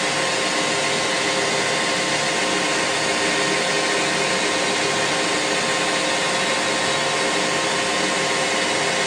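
Lathe running with its spindle set to the high speed of 950 rpm: a steady mechanical whir with several steady tones.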